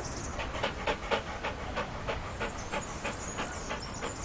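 A dog panting in quick, even breaths, about three or four a second.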